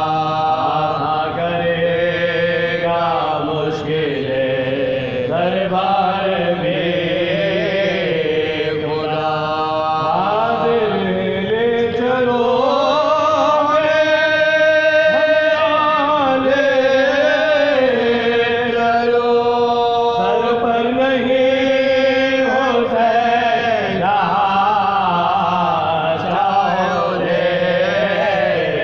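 Soazkhwani: a marsiya, an elegy of mourning, chanted in long held notes that waver and rise and fall in pitch.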